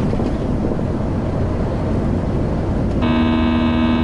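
Steady road and engine noise of a moving car. About three seconds in, a steady buzzing warning tone sounds for about a second and cuts off: the lane departure warning alerting that the car is on the white line.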